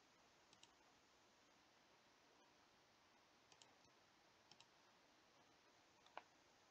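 Faint clicks of a computer mouse button, four clicks spread out with long gaps, most heard as a quick press-and-release pair, in otherwise near silence.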